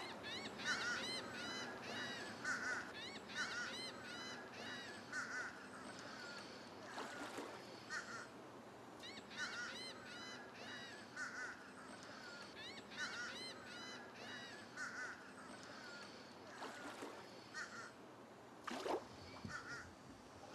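A flock of wading birds calling: many short, repeated calls from several birds overlapping over a light steady hiss, with a brief rushing noise shortly before the end.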